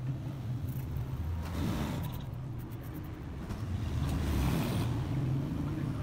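Road traffic: car and vehicle engines running past as a steady low rumble, swelling as vehicles go by about a second and a half in and again around four seconds in.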